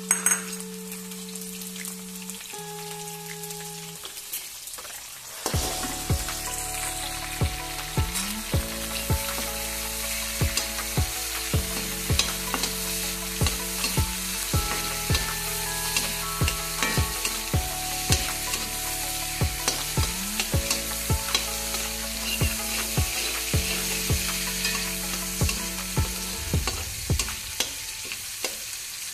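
Chopped green chillies and garlic sizzling in hot oil in a wok, growing louder about five seconds in, with the slotted spatula clicking and scraping against the pan as it stirs them.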